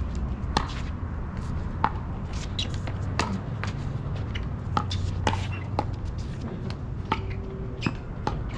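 Pickleball paddles striking a hard plastic ball: sharp pops at irregular intervals, some loud and close, some fainter, over a steady low rumble.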